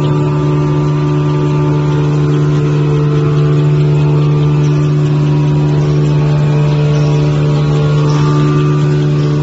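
Facial tissue folding machine running: a steady loud hum with a strong low drone and several steady higher tones above it.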